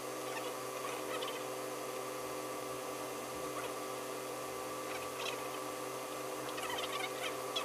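A steady hum made of several held tones, with faint scattered rustles and clicks of hands handling a mink-fur vest, about a second in, around five seconds in and near the end.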